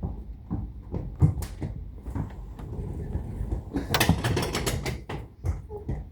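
A series of mechanical clicks and knocks over a low rumble, with a dense burst of rattling clicks about four seconds in.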